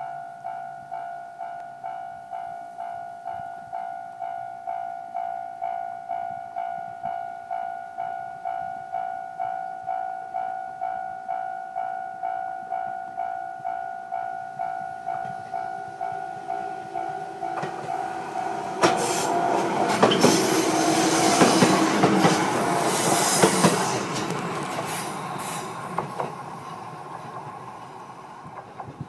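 A level-crossing warning bell rings steadily about twice a second, then stops, and a JR 213 series 5000-subseries electric multiple unit passes close by, its wheels clicking over the rail joints, loudest for a few seconds before fading away.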